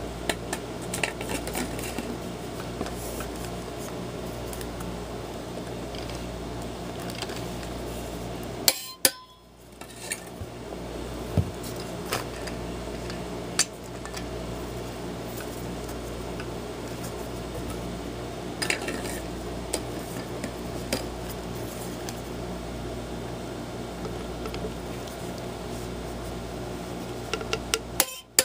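Scattered metal clinks and clanks of steel parts, bolts and hand tools being handled while a wheel hub is bolted into a steering knuckle, over a steady low hum.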